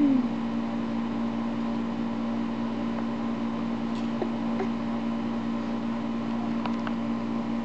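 Steady low mechanical hum of a running household appliance, a constant drone with no change in pitch, with a few faint soft clicks.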